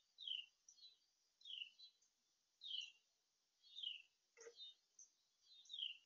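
A bird calling one short, high, falling note over and over, about once a second. A brief lower chirp comes about four and a half seconds in.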